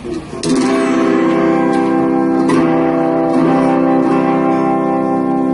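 Guitar strumming a C major chord, struck about half a second in and strongly again about two seconds later, with lighter strokes between, the notes left ringing.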